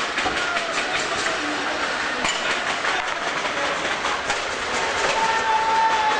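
Din of a street clash between police and stone-throwing youths: a constant rush of noise with scattered sharp knocks and clatters, and a long held shout from about five seconds in.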